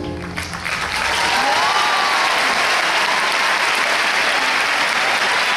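The last notes of the tango music fade out in the first half second, and a large audience applauds steadily, then cuts off suddenly.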